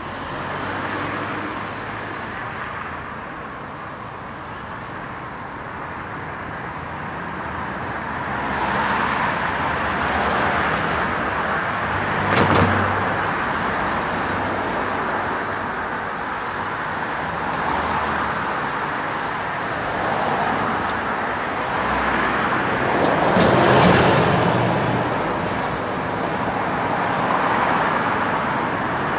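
Road traffic: cars and other vehicles passing one after another on a city street, as a steady hum with swells as each goes by. The loudest pass-bys come about twelve and twenty-four seconds in.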